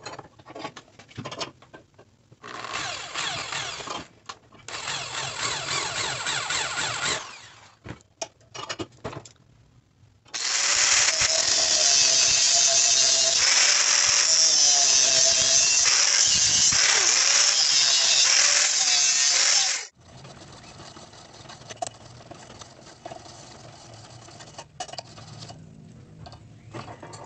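Angle grinder with a cutting disc cutting into a steel air-rifle barrel clamped in a vise: one loud, steady cut of about ten seconds that stops abruptly. Before it come two shorter noisy bursts, and after it light clatter of handling.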